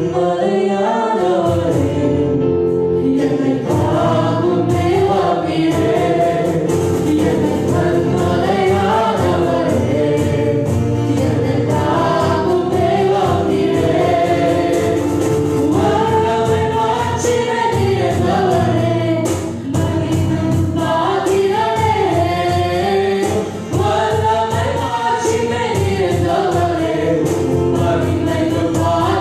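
Tamil Christian worship song sung live by a woman lead with a man and a second woman singing along, over acoustic guitar and sustained accompaniment.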